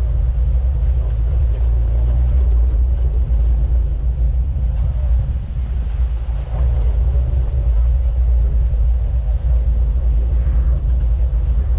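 Off-road vehicle driving on a rough trail: a steady, heavy low rumble of engine and drivetrain.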